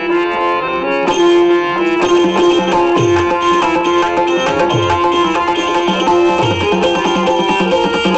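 Harmonium playing a held melody over a hand drum, the drum's deep bass strokes sliding down in pitch about every second and a half; the music fills out about a second in. It is Dashavatar theatre accompaniment played between spoken lines.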